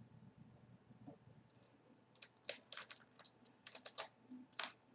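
Faint plastic clicking of a twisty puzzle cube being turned by hand: a quick, irregular run of sharp clicks starting about a second and a half in, after some soft handling noise.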